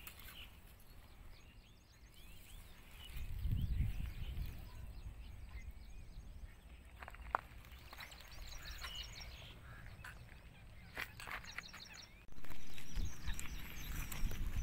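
Small birds chirping in the background. A low rumble comes in about three to four seconds in and again near the end, and there is a single sharp click about seven seconds in.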